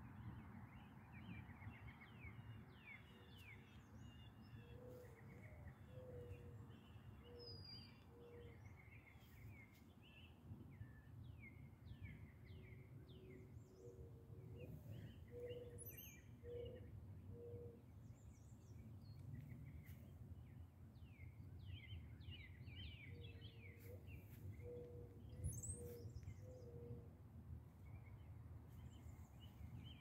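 Faint birdsong: many small birds chirping and singing, with a low cooing phrase of four or five notes repeated three times, about ten seconds apart. A steady low rumble sits underneath.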